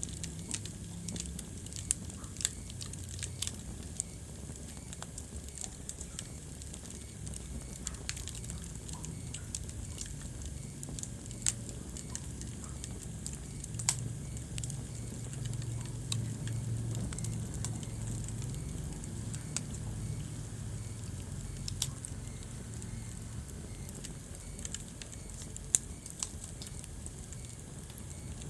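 Wood fire burning in a fireplace: a steady low rumble of flames with scattered sharp crackles and pops from the burning logs, a few of them standing out loudly.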